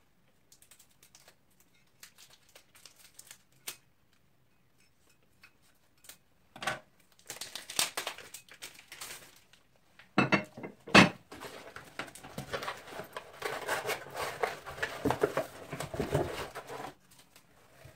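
Plastic protective covers being pulled off and crumpled from monitor-mount parts: crinkling and rustling plastic, starting about seven seconds in, with two sharp knocks around ten to eleven seconds in.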